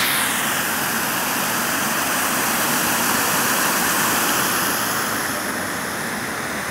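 Water of a large tiered fountain splashing and falling over its basins, a steady rush that grows slightly fainter near the end.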